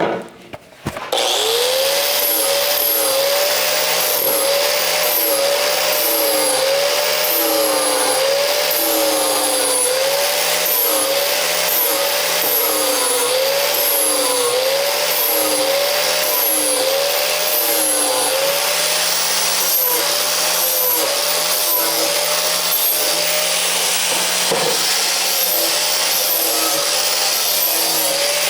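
Angle grinder with a 120-grit flap disc starting about a second in and running steadily while smoothing the sharp edges of a cut steel piece. Its pitch dips and recovers over and over as the disc is pressed and rolled over the edge.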